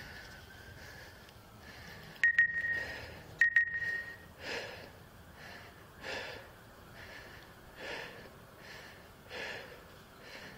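A person breathing heavily, close to the microphone, one breath about every second and a half. Two short, loud beeps a little over a second apart sound a couple of seconds in.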